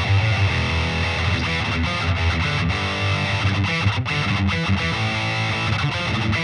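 Solar A1.7D LTD electric guitar played through a Peavey VYPYR 60 W combo amp with a distorted tone, a continuous run of riffs with quickly changing notes.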